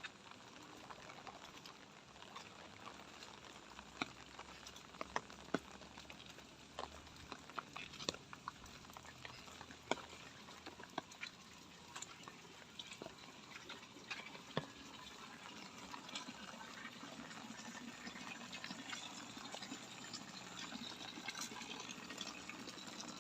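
Light rain falling: a faint, steady hiss with scattered sharp drip taps. The hiss grows a little louder over the second half.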